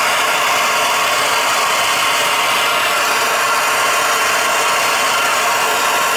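Plumber's gas torch flame hissing steadily while it heats a copper pipe joint for soldering.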